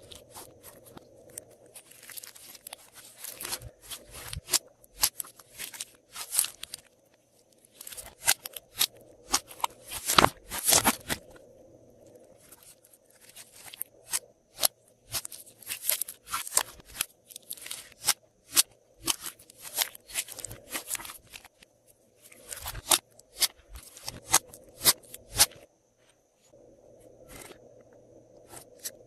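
Hands squishing and mixing glossy slime: irregular runs of sticky clicks, pops and crackles, with short pauses between handfuls.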